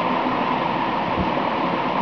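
Steady hissing background noise with no clear source, and one faint low thump about a second in.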